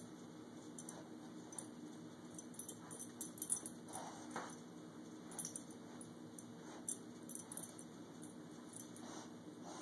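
Faint, scattered light clinks and jingles of a dog's metal collar tags as the dog shifts its head, over a steady low hum.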